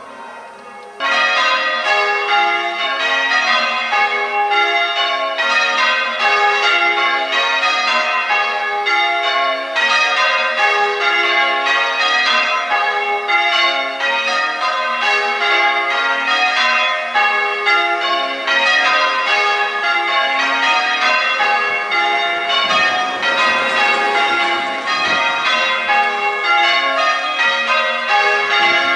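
Church tower bells change ringing: a ring of bells struck one after another in a steady, even rhythm, their order shifting from row to row. The ringing jumps suddenly louder about a second in.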